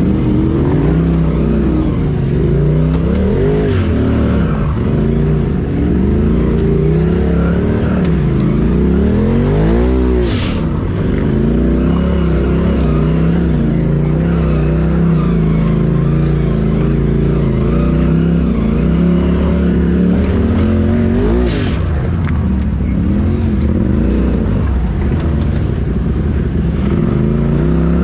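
Polaris RZR Turbo side-by-side's engine running under load on a trail, its pitch rising and falling again and again as the throttle is worked. A few brief hisses come through over it.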